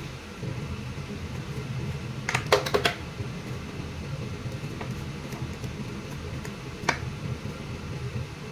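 Hand-held Y-peeler working the skin off a round fruit, giving a quick cluster of sharp clicks about two and a half seconds in and one more click near seven seconds, over a steady low hum.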